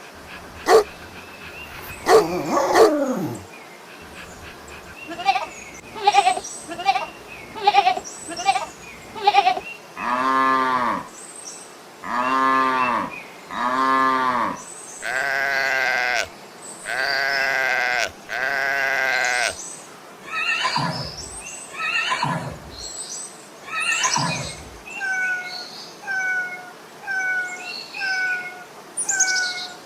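A series of farm animal calls, chiefly bleating: short calls about once a second, then several long, wavering bleats in the middle, a few falling cries, and near the end a row of short high chirps repeated about every second.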